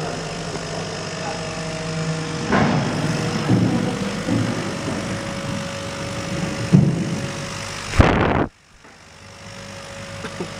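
CO2 laser cutting machine running, with its exhaust fan drawing off the cutting smoke: a steady mechanical hum carrying a faint steady tone. About eight seconds in comes a short loud rush of noise, after which the sound drops off suddenly and slowly builds back.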